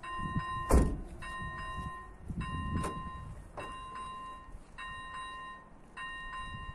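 Electronic level-crossing bell (AŽD ZV01/ZV02 type) ringing its warning, one chime-like stroke about every 1.2 seconds, each ringing on for about a second. A sharp knock, the loudest sound, comes just under a second in.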